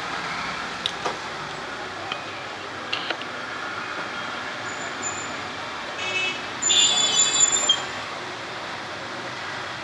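Steady background street traffic noise, with a few light clicks early on and a loud, choppy ringing signal lasting about a second, about seven seconds in.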